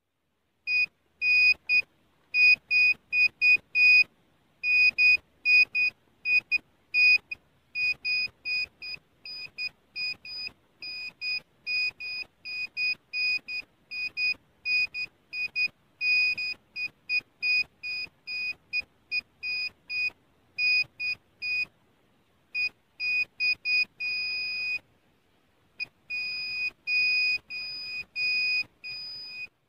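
ECS locator treasure detector beeping: short, high electronic beeps at about three a second, with a short pause now and then and one longer held tone near the end. The beeping signals a detected target, which the hunter takes to confirm a small object buried there.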